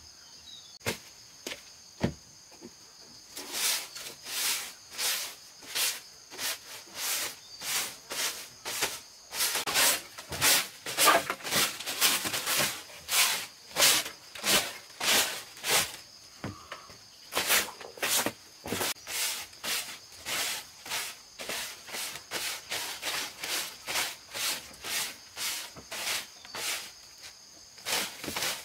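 Crickets or other insects chirring steadily and high-pitched, with rhythmic scraping strokes about twice a second over them. A few separate clicks come first, the strokes begin about three seconds in, and they run until near the end with one short pause midway.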